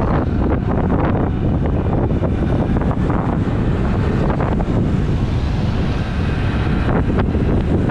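Heavy, steady wind noise on a helmet-mounted GoPro's built-in microphone while riding a motorcycle, with the bike's engine and road noise underneath.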